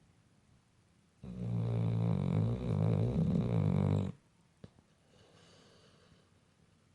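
Boxer–pit bull mix dog snoring in its sleep: one long, loud snore starting about a second in and lasting about three seconds, followed by a faint breath out.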